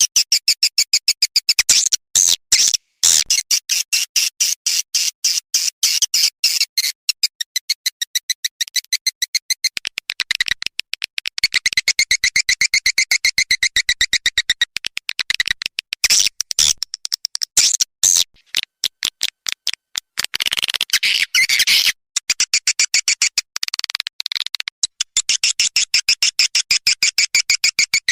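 Swiftlet lure recording: rapid, loud runs of sharp, high chirping twitters of swiftlets, repeated many times a second with brief breaks, the call sound played from tweeters to draw swiftlets into a nesting house.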